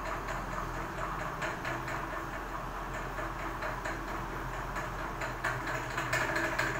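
Rice-flour and semolina coated maral (snakehead) fish steaks shallow-frying in oil on an iron tava over low heat, sizzling steadily with frequent small crackles.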